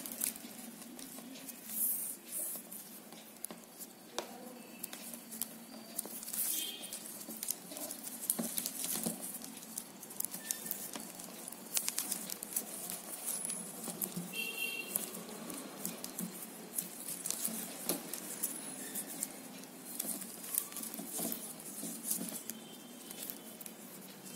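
Hands knotting stiff plastic basket-weaving wire: irregular light clicks, rustles and patter as the plastic strands are pulled through and tightened, with a few brief high squeaks.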